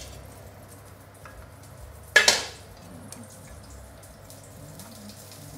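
A metal spatula strikes the steel wok once with a sharp ringing clang about two seconds in, over a faint steady sizzle of roast pork belly reheating on low heat.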